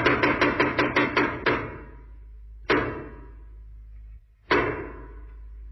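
Percussion from a radio show's closing jingle: a quick run of about eight sharp hits that fades over the first second and a half, then two single hits with long decaying tails, about three and four and a half seconds in.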